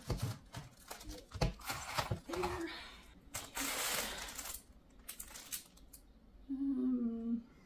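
Cellophane-wrapped packs of scrapbook die cuts being handled and shuffled: plastic crinkling and rustling, with light taps and clicks as packs are set down on a wooden table. The rustle is loudest about halfway through.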